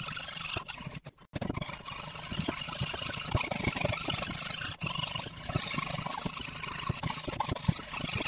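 Hand fretsaw with a fine 3/0 Superpike blade cutting a pattern in thin mahogany: a quick run of short rasping saw strokes, with a brief break about a second in.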